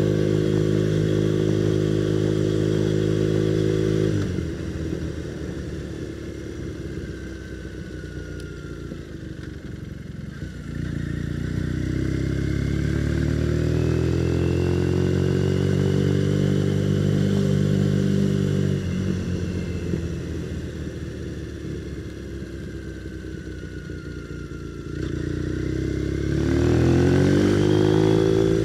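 Motorcycle engine heard through a microphone inside the rider's full-face helmet. It runs steadily, eases off about four seconds in, then climbs in pitch under acceleration, holds, backs off again and rises once more near the end.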